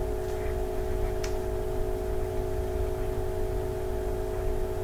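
A steady low hum with two unchanging held tones, and one faint click about a second in.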